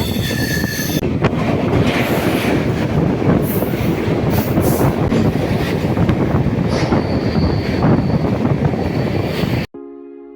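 Moving passenger train running on the track, a loud, steady rumble and rattle with a thin high squeal joining from about seven seconds in. The train sound cuts off abruptly near the end, and soft music takes over.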